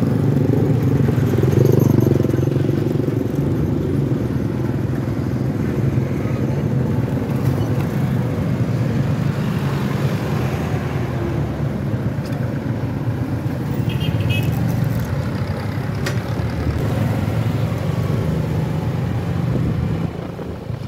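Small motorcycle engine running steadily at cruising speed, heard from on board, with wind on the microphone and road noise.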